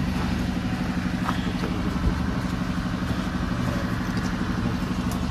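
An engine idling steadily: a low, even hum with a fast regular pulse.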